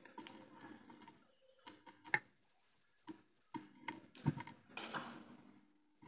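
Scattered light clicks and taps, a few seconds apart with the loudest about two seconds in, from crocodile test clips being handled on a ceiling fan motor's leads and capacitor, over a faint steady hum.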